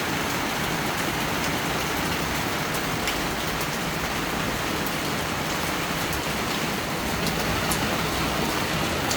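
Steady rain falling, with scattered individual drops tapping. A low rumble swells slightly about seven seconds in.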